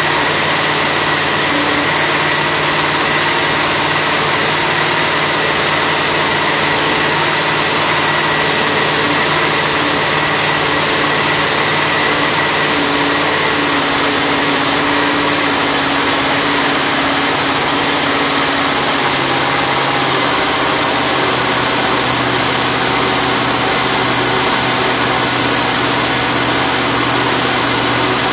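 Freshly rebuilt V-type engine running steadily on a test stand after its rebuild, loud and even, its note shifting slightly about two-thirds of the way through.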